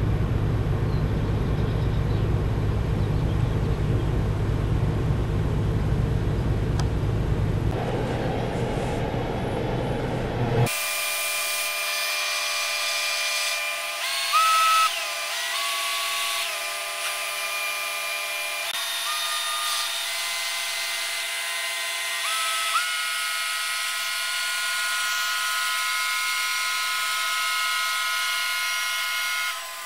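Deep, steady rumble of the cargo ship Govert Sr.'s diesel engine running. About ten seconds in, it cuts off abruptly and calm electronic music takes over, with long held synth tones that slide from one pitch to another.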